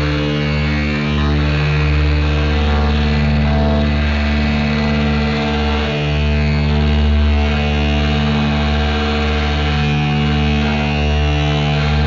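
Fuzz-distorted electric guitar feedback: a loud, steady, low buzzing drone with many overtones, dipping briefly a few times.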